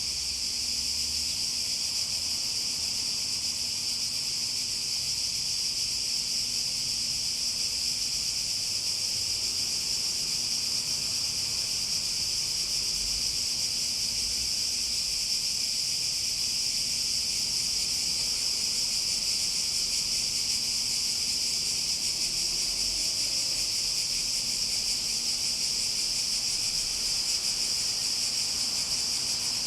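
Cicadas buzzing in a steady, continuous high-pitched drone that holds its level throughout.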